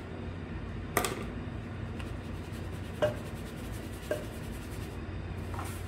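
Light knocks of a measuring cup against a mixing bowl as a cup of white sugar is poured in, with a soft rubbing hiss between them. Three sharp knocks fall about one, three and four seconds in, over a steady low hum.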